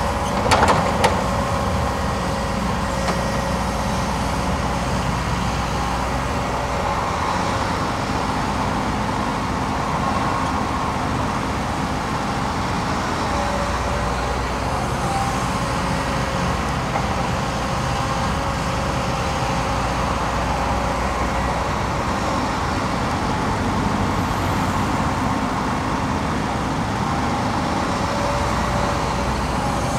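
Hitachi 180 excavator's diesel engine running steadily as the machine swings and digs, with a thin steady whine over the engine. A couple of sharp clanks sound about a second in.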